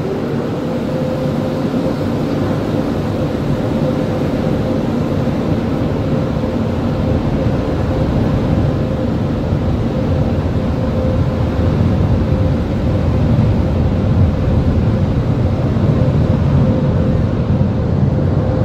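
Car-wash dryer blowers pushing air over the car, heard from inside the cabin: a loud, steady rush with a constant humming tone beneath it.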